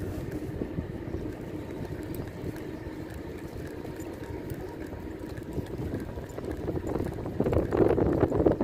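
Wind blowing on the microphone over small waves lapping on a rocky shore, a steady low rushing that grows louder near the end.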